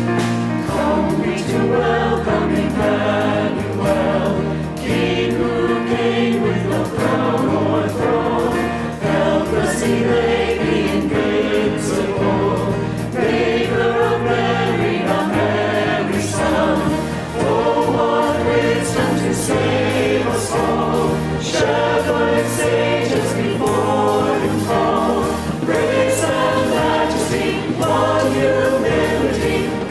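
Choir singing a gospel-style song with instrumental accompaniment.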